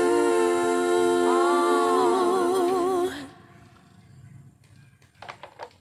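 A singer holds a long final note with vibrato, voice alone, which stops about three seconds in. Then it is quiet apart from a couple of faint knocks near the end.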